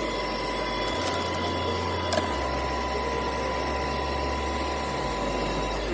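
CNC milling machine running: a steady whine over an even noisy hiss, with a sharp click about two seconds in; the whine stops near the end.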